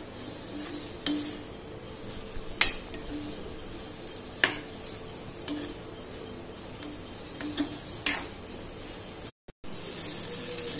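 Steel spoon stirring and scraping fried taro and thick masala in a stainless steel kadai, with a few sharp clinks of the spoon against the pan, over a low sizzle. The sound cuts out for a moment near the end.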